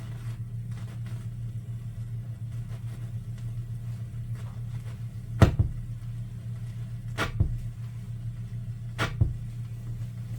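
Vinyl LP's locked run-out groove after the last track: the stylus circles with a sharp pop once per turn, about every 1.8 seconds as at 33⅓ rpm, over a steady low hum.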